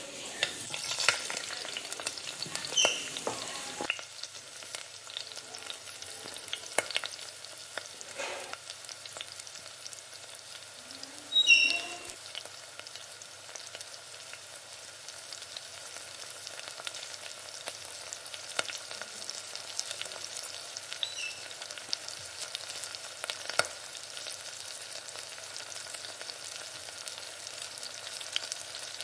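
Hot oil sizzling and crackling steadily as chicken pakoda fries. About eleven and a half seconds in there is one brief, louder sound with a ring.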